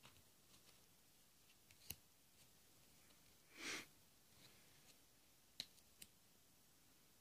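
Faint handling of a mini deck of small playing-card-sized cards: a few light clicks as cards are picked up and laid down, and one short swish of a card sliding off the stack a little past the middle.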